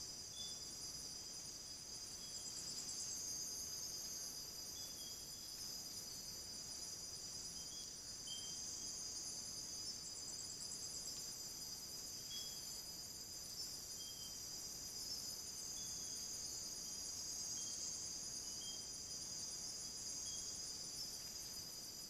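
Night chorus of crickets and other insects: several steady high-pitched trills layered together, with a short, lower chirp repeating every second or two.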